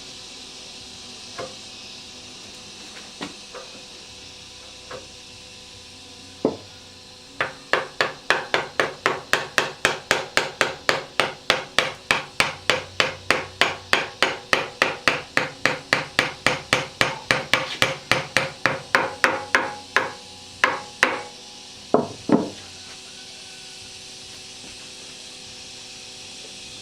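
Repeated hammer blows: a few scattered strikes, then a fast, even run of about four blows a second lasting some twelve seconds, ending with a few separate strikes.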